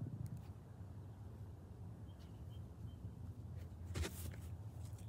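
Faint outdoor background with a steady low hum; about four seconds in, a short swish of a boy's pitching arm and body whipping past close to the microphone.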